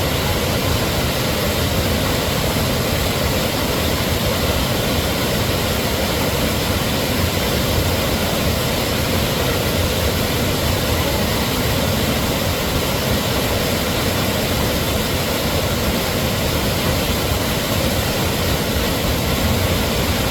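Waterfall roaring: a steady, unbroken rush of falling water.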